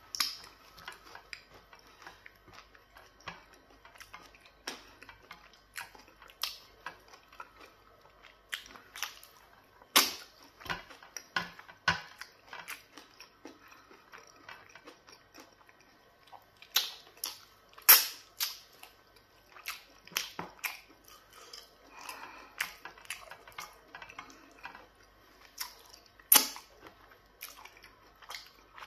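Close-miked eating sounds of fufu and black soup eaten by hand: wet mouth smacks, finger-licking clicks and chewing. Sharp smacks come every second or so, with louder ones about a third of the way in, past halfway and near the end.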